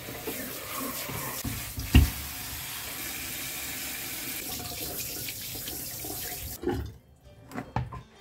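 Kitchen tap running into a sink as raw beef shank and tendon are rinsed under it, with one loud knock a couple of seconds in. The water stops about three quarters of the way through, followed by a few knocks.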